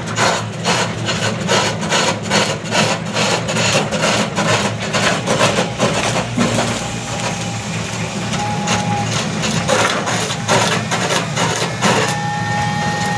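A cutting tool scrapes a rotating coconut-wood (glugu) pole on a homemade lathe, in a rhythmic rasping a few times a second as the pole turns. Under it runs the steady hum of the small dompeng diesel engine that drives the lathe.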